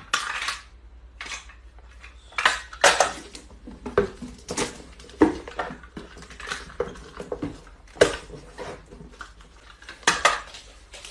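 Irregular clatter of hard objects knocking and clinking together, with a dozen or more sharp knocks spread unevenly through it.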